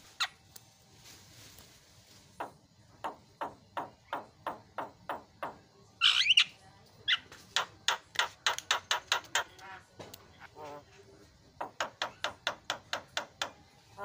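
Javan myna calling: runs of short, sharp notes, each dropping in pitch, coming a few a second, with a louder harsh screech about six seconds in.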